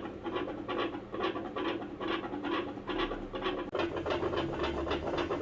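A dog's heart beating quickly as heard through a stethoscope, with breathing noise over the beats and a faint steady hum. Its rate speeds up and slows down, which the vet calls normal.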